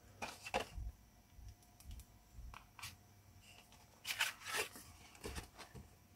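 Sheets of watercolour paper handled by hand on a clipboard: faint rustles, light scrapes and taps, with the busiest handling about four to five seconds in.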